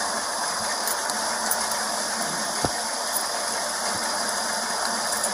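Steady background hiss of outdoor street ambience picked up by a body-worn camera's microphone, with a few faint clicks and one soft knock about two and a half seconds in.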